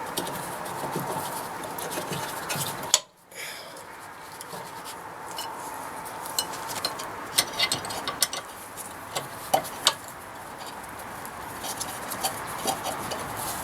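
Light metallic clinks, ticks and scrapes of a rear brake caliper, pads and guide pins being handled and fitted back together, with the clicks coming thicker near the middle. The sound cuts out briefly about 3 s in.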